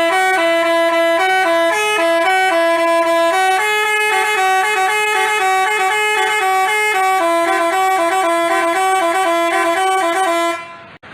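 Telolet basuri musical bus horn playing a quick tune of short, stepped notes, stopping abruptly near the end.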